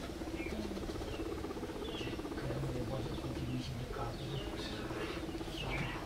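Guinea pigs vocalising: a steady, finely pulsing purr with short, high, falling squeaks every second or so, more of them near the end.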